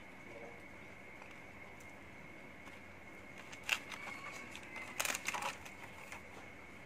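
Thin clear plastic snack tray crinkling and clicking as a wafer roll is pulled out of it: one sharp click a little past halfway, then a short cluster of crackles about a second later.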